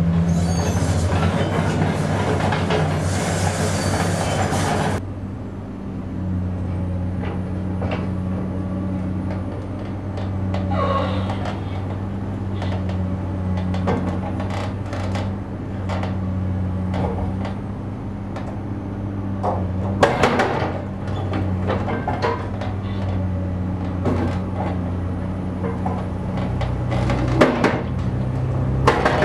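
Heavy demolition machinery: an engine running with a steady low hum, with scattered metal clanks and knocks, the loudest about twenty and twenty-seven seconds in. A denser rumble and clatter fills the first five seconds and cuts off suddenly.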